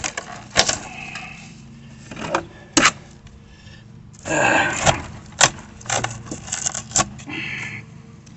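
Woody brush being handled between saw cuts, with no saw running: rustling leaves and twigs, with several sharp snaps and clicks spread out, and a louder burst of rustling about halfway through.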